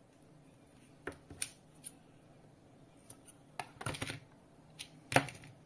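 A series of short, irregular clicks and taps from hands handling small objects on a desk, with a brief flurry about four seconds in and the loudest click just after five seconds.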